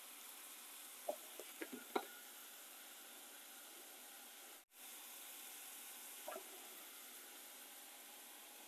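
Shredded vegetables sautéing in butter in a frying pan, sizzling faintly and steadily. A few light clicks and taps from spice shakers come about a second in and again past six seconds.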